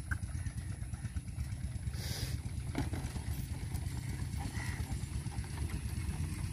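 A steady low engine rumble, with a short hiss about two seconds in and a single click shortly after.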